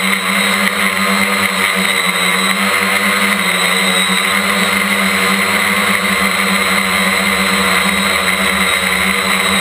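Quadcopter's electric motors and propellers whining steadily while it hovers, heard from a camera on the drone itself, right beside the motors. The pitch holds even throughout.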